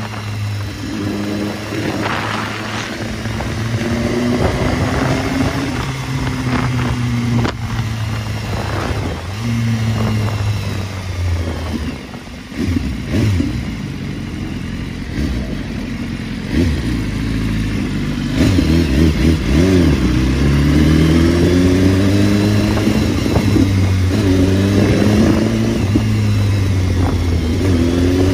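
Sport motorcycle engine heard from the saddle while riding, its pitch rising and falling as the rider rolls on and off the throttle. About two-thirds of the way in it gets louder, with repeated climbs in revs.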